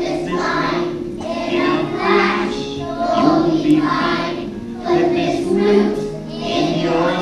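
A children's choir singing with musical accompaniment.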